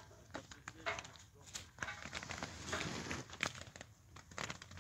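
Olive tree leaves and twigs rustling close by, in uneven short crackles.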